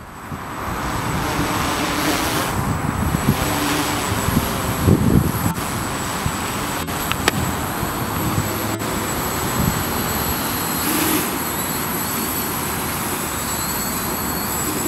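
Small electric quadcopter flying, its motors and propellers giving a steady buzzing whir.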